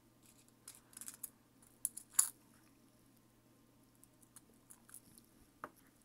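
Light clicks and taps of small model-kit parts and tools being handled on a workbench, with one sharper click about two seconds in, over a faint steady low hum.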